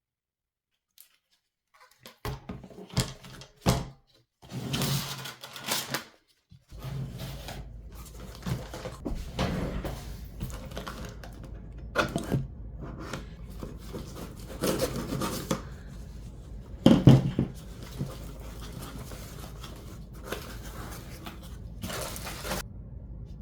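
Hands handling PC parts and their packaging: a string of irregular rustles, scrapes and knocks, the loudest a little after the middle, over a steady low hum.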